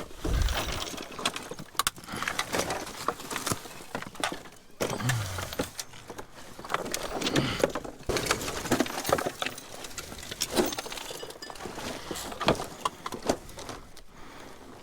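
Rummaging through junk by hand: a run of irregular clatters, knocks and rustles as objects and plastic are shifted and handled.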